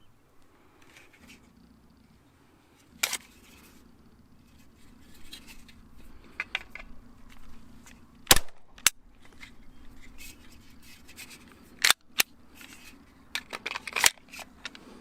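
Several sharp 9mm pistol shots from a Glock 34, fired at irregular intervals with a pair close together about halfway through and a quick cluster near the end.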